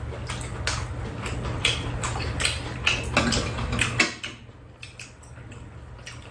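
Metal chopsticks and spoons clicking against bowls during a meal, a quick run of sharp clinks. A low steady hum underneath drops away about four seconds in.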